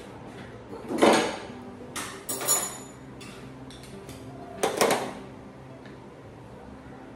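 Kitchen clatter of containers and utensils being handled: three bouts of knocks, about a second in, around two seconds in with a brief metallic ring, and again near five seconds.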